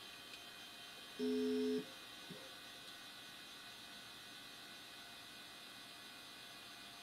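Seagate BarraCuda 18XL ST39216W SCSI hard drive running at speed just after spin-up, a faint steady high whine from the spindle, settling into idle. About a second in, a short electronic beep of two steady pitches sounds for half a second, the loudest thing here, followed by a faint click.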